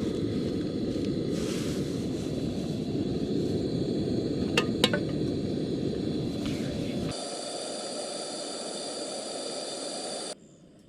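Camp gas stove burner running steadily under a pot of rice, with two sharp metal clinks about halfway through. Then a thinner, higher hiss for about three seconds, which cuts off abruptly.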